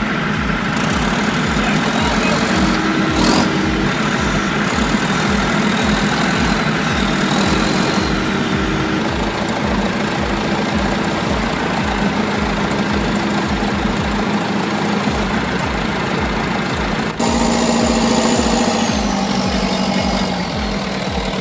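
Heavy-equipment diesel engine running steadily with an even low pulse, as an excavator drags a skidder out of deep mud; the sound changes abruptly about 17 seconds in.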